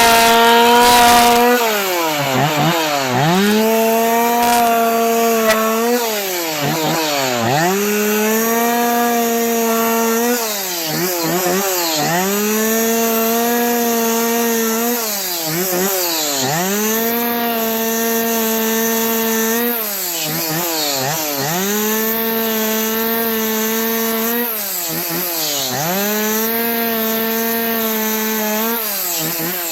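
Stihl two-stroke chainsaw cutting wood at high revs, its engine pitch dropping sharply and recovering every few seconds.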